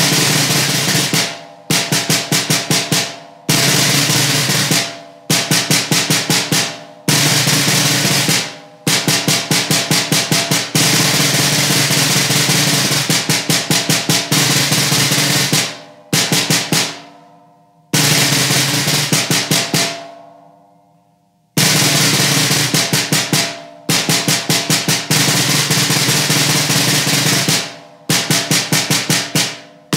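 Metal-shell snare drum played with sticks in a solo etude: quick phrases of crisp strokes and rolls separated by short breaks, with one long roll about halfway through. About two-thirds of the way in, two accented strokes are left to ring out, followed by about a second of silence before the playing starts again.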